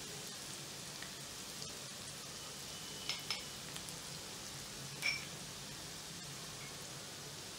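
Chopped onions frying in oil in a pan, sizzling steadily. A few light clinks come about three seconds in and again about five seconds in.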